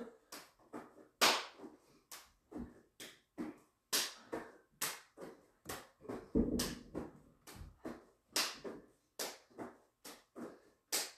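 Hands slapping together in alternating high fives between two people holding planks, a steady run of sharp smacks at about two a second.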